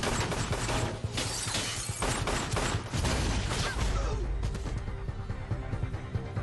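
A burst of rapid gunfire with glass shattering, over tense action-score music. The shooting stops about four seconds in, leaving the music.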